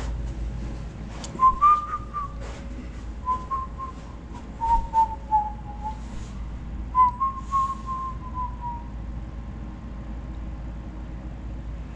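A person whistling a short tune in three phrases, the notes sliding and falling in pitch, over a low steady rumble with a few scattered clicks and knocks.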